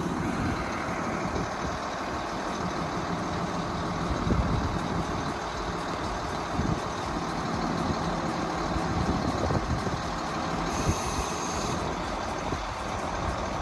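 Truck-mounted crane's diesel engine running steadily.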